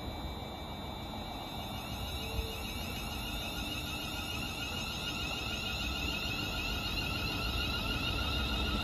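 Class 350 Desiro electric multiple units pulling away from a standstill: a high electric traction whine of several steady tones over a low rumble, growing louder as the train moves off.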